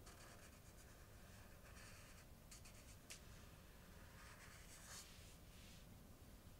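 Felt-tip marker drawing on flip-chart paper: faint, scratchy squeaks in several separate strokes, with a light tick about three seconds in.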